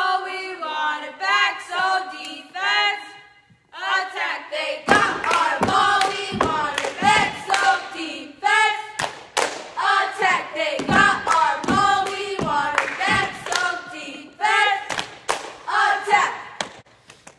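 Four girls chant a cheer in unison in a sing-song rhythm, with sharp claps and foot stomps keeping the beat from about five seconds in. The voices ring in a large, echoing gym.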